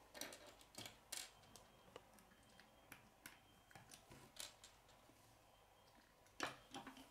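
Small plastic K'nex rods and connectors clicking and tapping as they are handled, pushed together and set down on a wooden table: scattered faint clicks, the loudest about six and a half seconds in.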